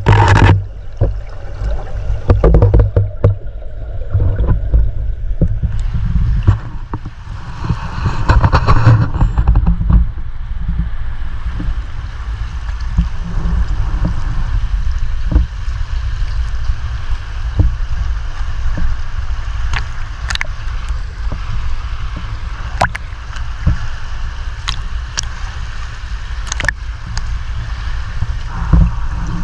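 River current heard underwater through a submerged camera: a steady low rumble of flowing water, swelling for a few seconds near the start, with a handful of sharp clicks in the second half.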